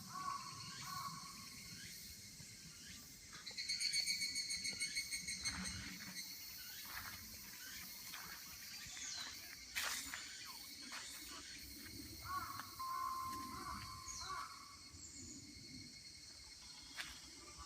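Insects chirping steadily, with a louder, fast-pulsing trill about four seconds in.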